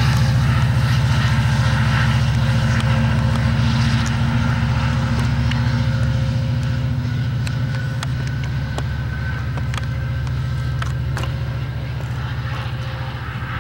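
Amtrak California diesel passenger locomotive passing with a steady low engine drone, scattered sharp clicks in the middle, and the drone fading slowly in the second half as the train moves away.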